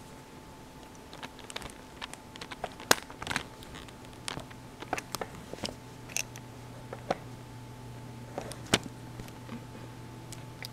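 Keystrokes on a computer keyboard, tapped unevenly with short pauses, from about a second in until near the end, over a faint steady hum.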